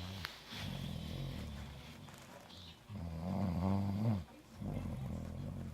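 A person snoring: three long, low, rattling breaths, the middle one the loudest, its pitch rising and then falling.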